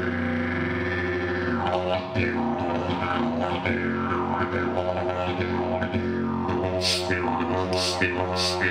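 Yidaki (didgeridoo) playing a continuous low drone, its tone reshaped rhythmically by the mouth, held without a break through circular breathing. A few sharp, bright accents stand out near the end.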